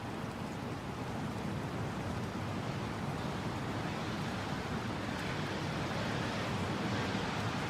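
Mountain wind blowing in a steady rush, swelling a little in strength over the last few seconds.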